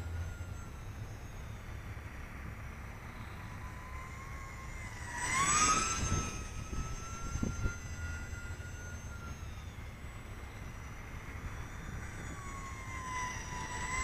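High whine of the E-flite UMX Aero-Commander's electric motors as the small twin-engine RC model plane flies. The whine jumps up in pitch and gets loudest about five to six seconds in, then settles lower near the end, over a low rumble of wind on the microphone.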